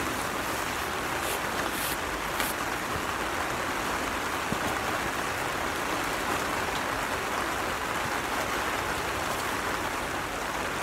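Steady rain falling on the plastic film of a hoop greenhouse, heard from inside as an even hiss.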